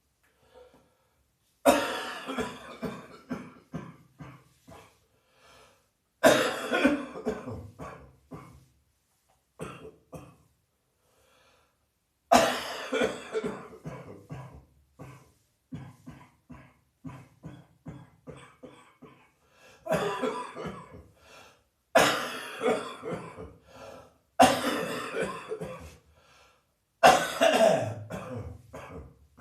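A person with a heavy chest cold coughing in repeated fits. There are seven loud fits, each opening with a strong cough and trailing off in a run of smaller coughs.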